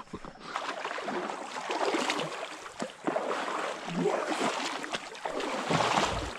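Water sloshing and splashing in irregular strokes as someone wades across a shallow creek.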